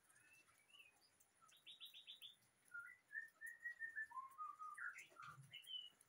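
White-rumped shama singing faintly. A quick run of about six short notes comes first, then a string of clear whistled notes, ending with a few higher rising notes.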